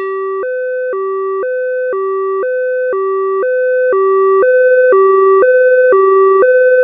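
Japanese-style two-tone ambulance siren (pee-poh) alternating steadily between a higher and a lower note about once a second. It grows louder over the first few seconds, as if approaching.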